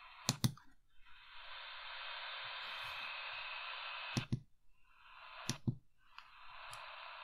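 Medium-wave static hissing from a RadioShack 2000669 pocket radio's speaker between stations as it is tuned up the band, broken three times by a pair of sharp clicks as the tuning button steps the frequency.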